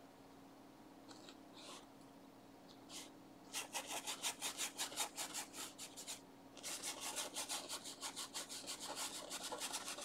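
Paintbrush scrubbing oil paint back and forth on textured canvas. A few soft swishes come first; then, from about three and a half seconds in, there are two runs of quick, even strokes at about six a second, with a brief pause between them.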